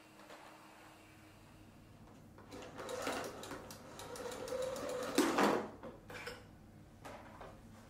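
Canister vacuum cleaner being handled: about three seconds of whirring, rattling mechanical sound, ending in a loud sharp clack.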